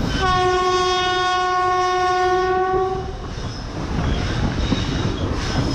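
Locomotive horn sounding one long steady blast of about three seconds, heard from a carriage of the moving train, over the continuous rumble and clatter of the coaches' wheels on the track.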